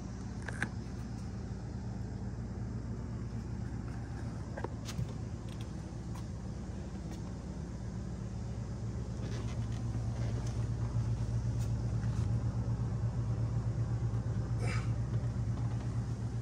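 Steady low machine hum that grows louder a little past halfway, with a few light clicks and taps over it.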